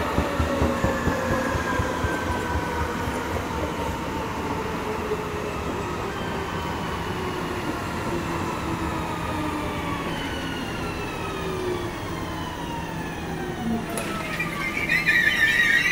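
Västtrafik X61 (Alstom Coradia Nordic) electric multiple unit slowing into a station: several traction-motor whines fall steadily in pitch as it decelerates, over wheel rumble and knocks. Near the end a loud brake squeal sets in.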